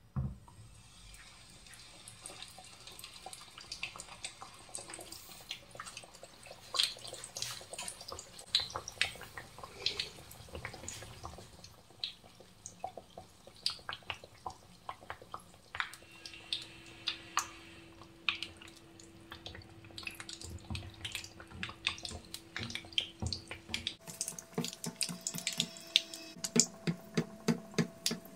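Hot oil sizzling and crackling with many small sharp pops as a qeema-stuffed dough round (katlama) fries in a pan.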